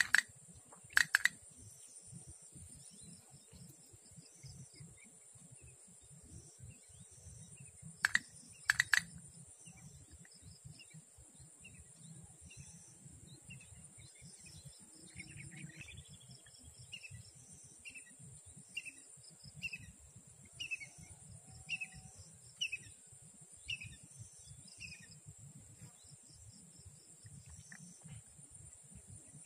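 Outdoor pond-side ambience: a steady high insect drone, with a bird giving a run of short repeated chirps, roughly two a second, in the middle. A few sharp clicks at the start and a pair about eight seconds in are the loudest sounds.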